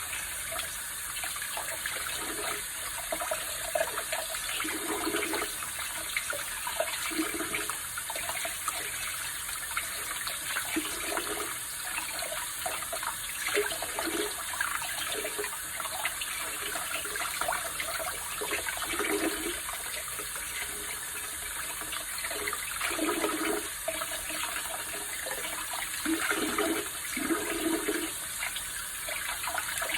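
Tap water running steadily into a sink, with irregular louder splashes as fish are rinsed under the stream.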